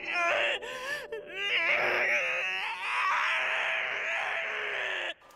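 A voice crying and wailing, its pitch wavering and bending, cutting off abruptly near the end.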